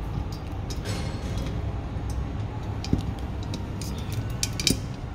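Light metal clicks and clinks as a wire dish-rack shelf is fitted onto its metal frame, with a sharper knock about three seconds in and another near the end.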